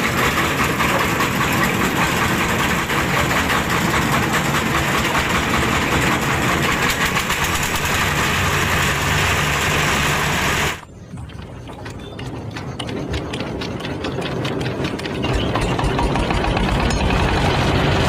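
Single-cylinder diesel engines driving rice threshers, running with a dense mechanical clatter. About eleven seconds in, the sound drops sharply to a quieter, evenly pulsing engine, which grows louder again with a steady low thumping near the end.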